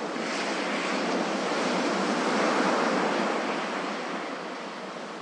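Ocean waves breaking and washing in as surf. The rush swells to its loudest about halfway through, then eases off.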